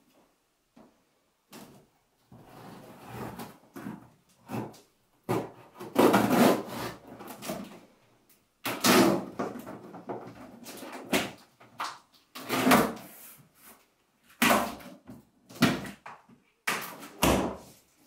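Box cutter slitting the packing tape on a cardboard carton, and the cardboard flaps being pulled open: a series of irregular scraping rasps and knocks.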